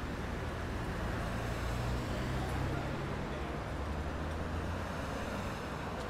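Street traffic noise: a steady hum of passing vehicles, with a low engine drone that swells about a second in and again near the end.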